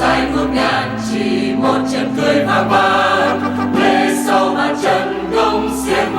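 A choir singing over instrumental backing with held bass notes.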